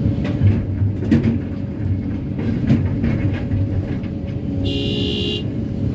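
Kobelco SK330-10 crawler excavator's diesel engine running steadily under load, heard from the cab, with rock clunking into a dump truck's steel bed several times as the bucket unloads. A brief high-pitched tone sounds for under a second near the end.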